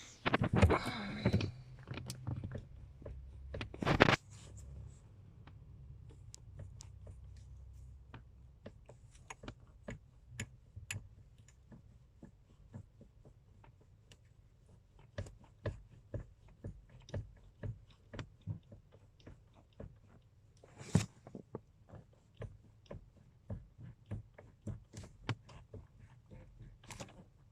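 Repeated short, sharp knocks from the steering column of a Toyota Hilux Surf 215 / Land Cruiser Prado 120, coming at an irregular pace of one or two a second through the second half, with one louder knock. They are the sign of play in the steering column. The first few seconds hold rustling and a loud thump.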